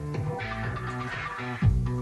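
Entrance music with guitar and bass, playing a repeating riff. Heavier low thuds of a beat come in near the end.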